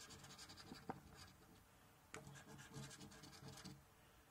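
Coin scratching the latex coating off a Monopoly scratchcard in quick, faint strokes, in two bouts with a short pause of about a second between them.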